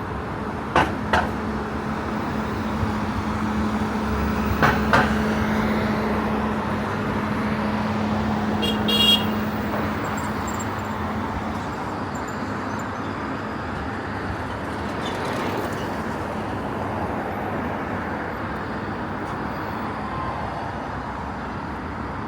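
Street traffic noise, with a steady low hum through the first half, a few sharp knocks about a second and five seconds in, and a short high-pitched horn toot about nine seconds in.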